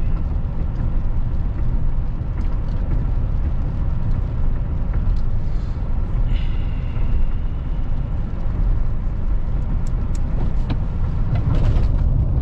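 Steady low rumble of a vehicle's engine and tyres heard inside the cabin while driving on a wet paved road. Near the end the tyre noise gets louder as the vehicle moves onto gravel.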